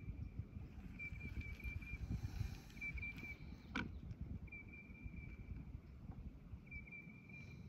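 A high, thin trilling call repeated five times, each lasting about a second, over a faint low rumble. A single sharp click comes about halfway through.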